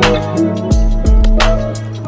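Background music with a steady beat: sustained bass and keyboard notes under regular drum hits.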